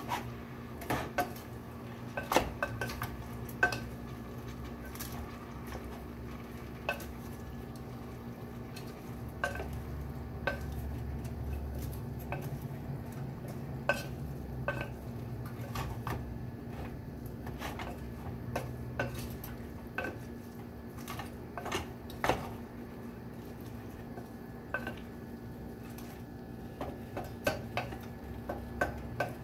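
Wooden spoon stirring mung bean sprouts in a stainless steel pot, knocking and scraping against the metal now and then, over a steady low hum.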